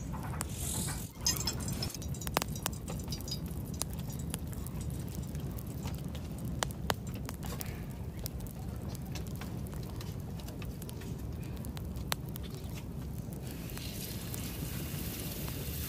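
Wood fire burning in a clay hearth, with sharp crackles and clicks scattered over a steady low rumble.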